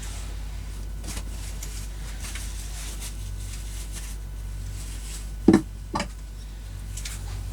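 A steady low hum under faint rustling, then two sharp knocks about half a second apart near the end, the first the louder.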